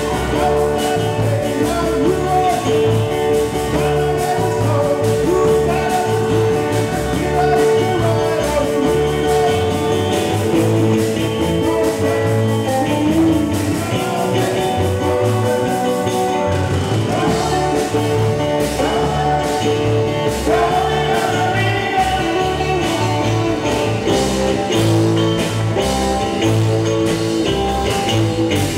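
Live rock-and-roll cover band playing loud through amplifiers: electric guitars, bass guitar and drum kit with a steady beat, and a singer's voice over them.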